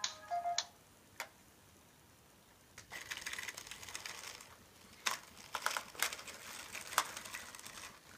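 Sony AIBO ERS-210 robot dog: a short electronic tone near the start, then from about three seconds in its leg servo motors whir and chatter in rapid clicks as the legs move and jitter. The repairer describes this as extreme jitters and puts it down to dirty contacts.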